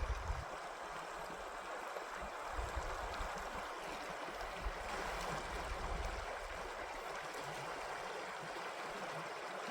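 River water rushing steadily, with intermittent low rumbles in the first half.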